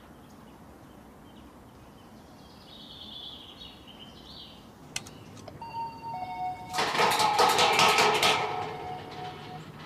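An intercom doorbell is pressed with a click about halfway through and rings with a few steady electronic tones. About two seconds later, while the tones still sound, a louder crackling burst about a second and a half long covers them.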